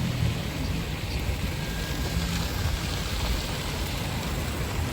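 Steady city street noise: a low rumble of traffic under an even hiss.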